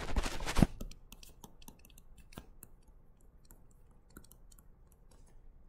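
Faint, scattered clicks and taps of a stylus writing on a tablet screen, after a short louder noise at the very start.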